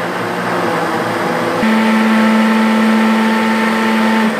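Countertop blender running, mixing eggs, oil, salt and mozzarella into a batter. About one and a half seconds in, its motor settles into a stronger, steady hum, which drops back just before the end.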